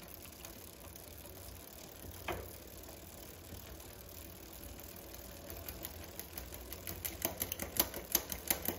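Bicycle chain running over the rear cassette of a spinning e-bike wheel, at first faint, then from about halfway a rapid, irregular ticking that grows louder. The chain is catching on the neighbouring sprocket as the rear derailleur cable tension is turned up to shift it into sixth gear.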